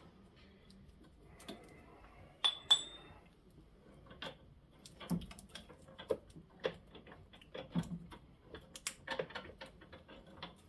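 Metal tools and parts being handled: scattered clinks, taps and knocks, with one sharp ringing metallic clink about two and a half seconds in.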